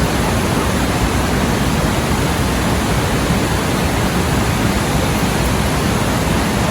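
Steady rush of water pouring through a river spillway, an even, unbroken noise.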